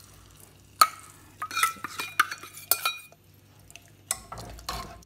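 Steel ladle stirring sambar in a metal cooking pot and knocking against the metal rims: a scatter of sharp metallic clinks, each with a short ring, the loudest about a second in, then a few softer knocks near the end.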